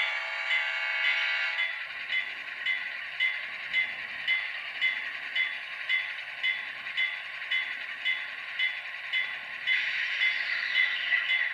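HO scale model diesel locomotive's ESU sound decoder playing its horn, which cuts off about two seconds in. The bell then rings on in an even series of strikes, about two a second.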